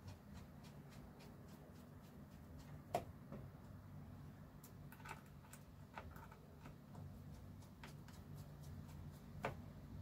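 Faint ticking and small clicks of a cross-head screwdriver turning a screw into a laptop's bottom case, with two sharper clicks about three seconds in and near the end.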